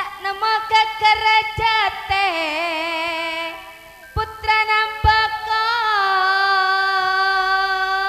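A female sinden singing a Madurese tayub song through a PA microphone, in long held notes with heavy vibrato and sliding ornaments. A few low drum thumps sound under the voice.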